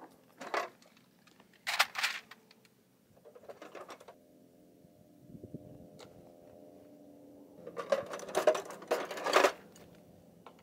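Metal hand tools clinking and clattering in a toolbox as they are rummaged through and taken out, in several short bursts, the longest and loudest near the end.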